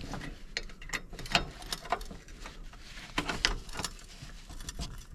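Metal clicks and scrapes of a hand tool working against a riding mower deck's hanger pin and its lock clip, prying it off; a run of irregular sharp clicks.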